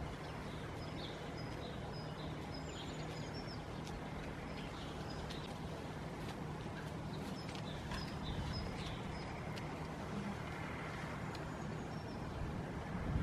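Steady low outdoor rumble with a faint hum, and small birds chirping in short, high notes scattered through it; no goat bleats stand out.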